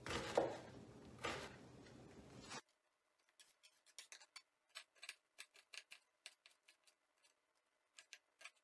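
Chef's knife chopping onion on a wooden cutting board: a few strikes over room noise, then, after the background drops away suddenly about two and a half seconds in, a steady run of short sharp chops, about three a second.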